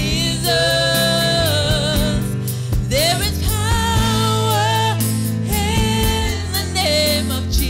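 Live gospel worship music: a woman sings long held notes with vibrato into a microphone over keyboard and drums.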